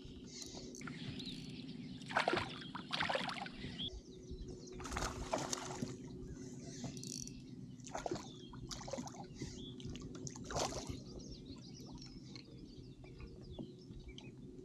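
Faint bird chirps over a steady low hum, broken by a few brief sharp knocks or splashes.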